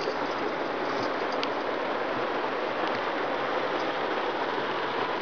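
Steady road and wind noise inside a moving car.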